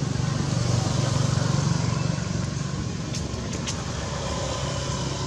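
A motor vehicle engine running nearby, with a steady low hum that is loudest in the first two seconds, eases, then rises again near the end. A few faint clicks come around three to four seconds in.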